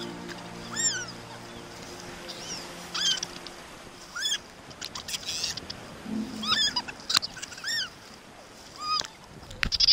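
A series of short animal calls that rise and fall in pitch, about one a second. Low sustained musical notes fade out in the first couple of seconds.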